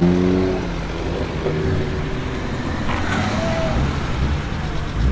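BMW performance car engine running with a low rumble, with a brief engine note right at the start that falls slightly in pitch as it eases off.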